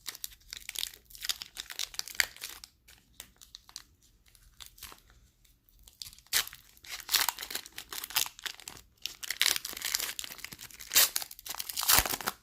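A trading card pack's plastic wrapper being torn open and crinkled in the hands, with irregular crackling that grows busier and louder about halfway through.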